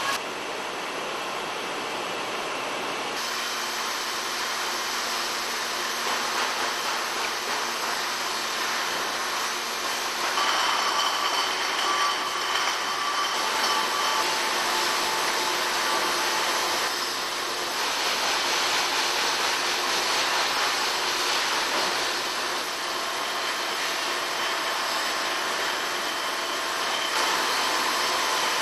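Brewery bottling line running: conveyors carrying glass beer bottles and a 24-head bottle filler, a steady machine din with some faint steady tones. The sound shifts a few times along the way.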